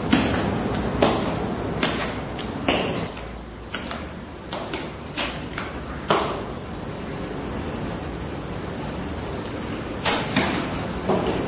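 A series of sharp knocks and thuds about a second apart, with a pause of a few seconds in the middle and a few more knocks near the end.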